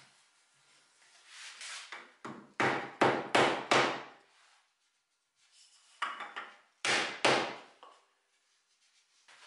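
Rubber mallet knocking on a clamped wooden chair frame: a short scrape, then a quick run of about five blows, a pause, and three more.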